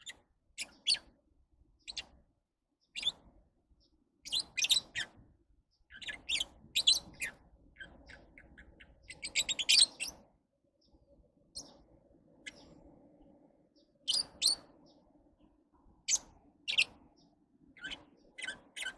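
Lovebirds calling: sharp, high-pitched chirps in short bursts of one to a few notes, with a quick rapid series of chirps near the middle.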